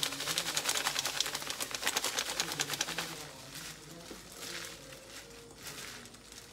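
Crinkly plastic packaging rattling and crackling as frying powder is shaken out of the bag for about three seconds. It is followed by a softer rustle of a plastic-gloved hand tossing chives in the powder.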